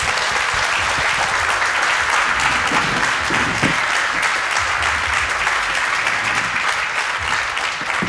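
Audience applauding at a steady level.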